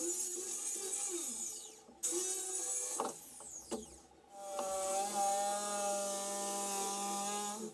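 Handheld circular saw cutting through a sheet of MDF in two short runs, its whine falling away as the blade spins down after each, then an electric jigsaw running steadily through the board until it stops abruptly near the end.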